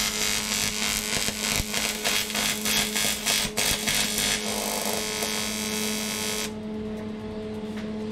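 TIG welding arc running steadily with a crackly hiss as a bracket is welded. The arc cuts off about six and a half seconds in.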